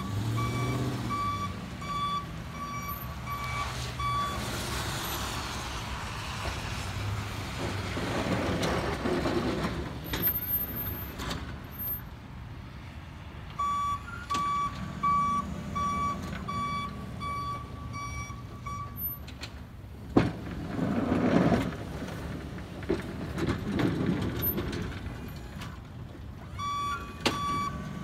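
Ford F-250 plow truck working back and forth: a backup alarm beeps in steady on-off pulses whenever it reverses, at the start, again through the middle and near the end. Between the beeps come two longer, louder stretches of engine and rushing noise as it pushes snow, with one sharp knock partway through the second.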